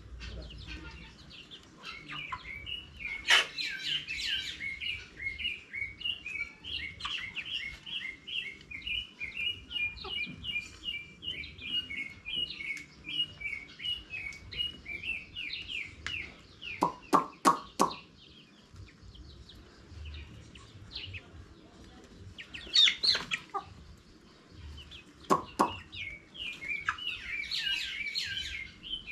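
Chickens chirping in quick, high, overlapping peeps. The chirping is dense through the first half and returns near the end. A quick run of five or six sharp knocks comes about midway, with two more a little later.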